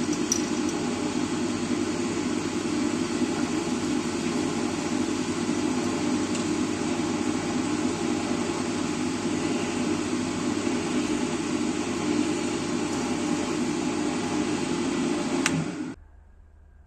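Belmash floor-standing drill press with a variator drive, its 1100 W induction motor running at a raised speed with a steady hum while a 1.5 mm bit drills into a metal tube. The sound cuts off suddenly about sixteen seconds in.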